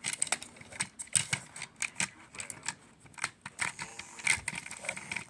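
Irregular clicks and taps of hard plastic as a hand handles and turns a toy train engine close to the microphone.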